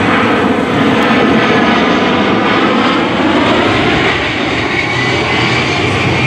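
A-10 Thunderbolt II's twin high-bypass turbofan engines rushing loudly and steadily as the jet flies a low display pass, with a faint high whine over the broad jet noise.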